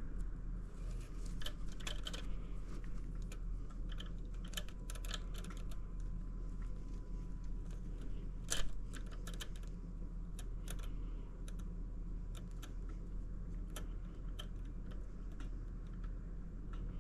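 Irregular light clicks and taps of hands handling braided line and small parts on an outboard's throttle linkage, with one sharper click a little past halfway, over a steady low hum.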